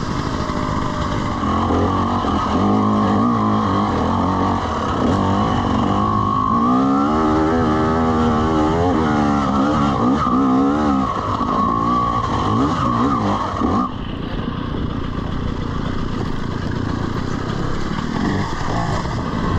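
Two-stroke dirt bike engine, a fuel-injected 2020 TM EN300 TPI, being ridden on a trail: the revs rise and fall again and again as the throttle is worked, easing off about two-thirds of the way through.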